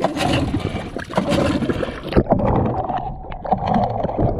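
Yamaha Enduro two-stroke outboard pushing a dinghy through the water, heard with wind and splashing. About two seconds in the sound turns muffled and bubbly as it is heard from underwater beside the motor's lower unit.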